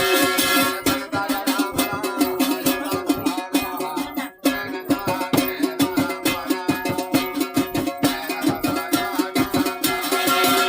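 Garhwali folk music with a plucked string instrument over a quick, regular beat. The sound drops out briefly about four seconds in.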